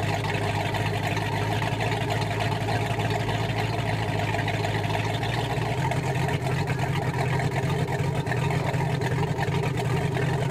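Speedboat engine idling steadily, its twin exhaust outlets at the waterline spilling cooling water. The low hum changes character about six seconds in.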